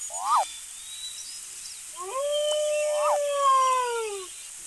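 Wolf howling: a short rising call near the start, then one long howl from about two seconds in that rises, holds steady and falls away at the end. Birds chirp faintly in the background.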